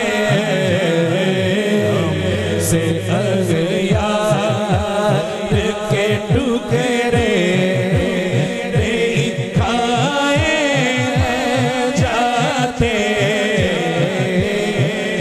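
A man singing an Urdu naat through a microphone and PA system, holding long ornamented notes that bend up and down, with low thumps in a steady rhythm underneath.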